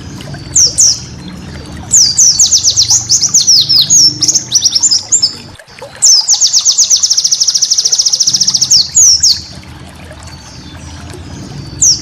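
Pleci (white-eye) singing: a run of quick chirps sweeping down in pitch from about two seconds in, then a fast, even trill of about ten notes a second from about six to nine seconds in, with single short calls near the start and end. A low steady background hum runs underneath.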